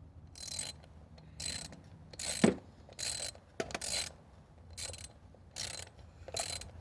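Hand ratchet wrench with a 10mm socket working an ignition-coil bolt, clicking in about eight short strokes, with one sharper knock about two and a half seconds in.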